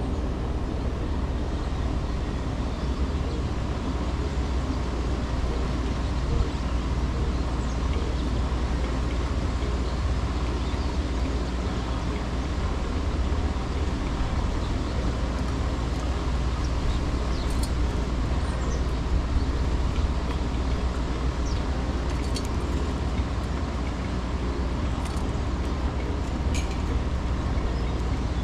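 Steady low rumble of wind and city traffic, with a few faint, short bird chirps in the second half.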